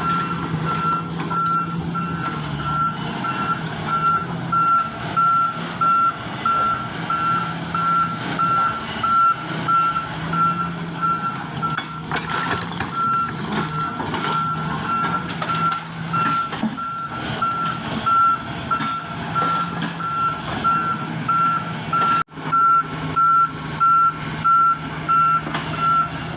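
A heavy construction vehicle's reversing alarm beeping steadily, about two beeps a second, over its engine running. The sound drops out for a moment near the end.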